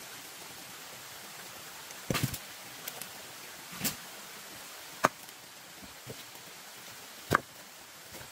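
Sharp knocks at irregular intervals, about four or five of them with the loudest two late on, over a steady background hiss.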